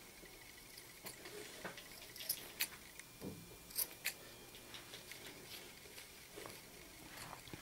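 Faint scissors snipping and being handled: a scatter of short, sharp blade clicks, the loudest few coming about two to four seconds in.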